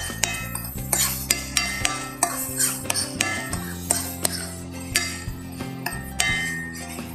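A utensil stirring and scraping in a frying pan, with many quick clicks and knocks against the pan, over background music.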